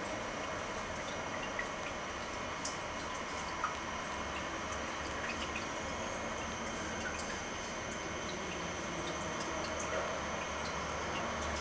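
A lop-eared rabbit grooming, licking and nibbling its front paws: scattered faint little wet clicks over a steady hiss.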